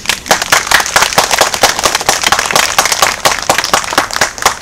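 Audience applauding: a burst of hand clapping that starts suddenly and carries on densely.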